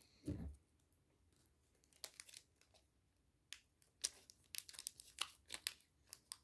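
Foil wrapper of a Pokémon TCG booster pack crinkling in short, faint crackles as it is handled and torn open by hand, starting about two seconds in. There is a soft low thump just after the start.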